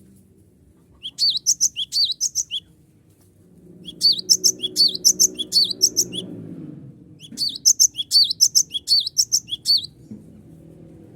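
Cinereous tit (gelatik batu) singing three runs of fast, repeated, sharp high notes. Each run lasts one to three seconds, with short gaps between them.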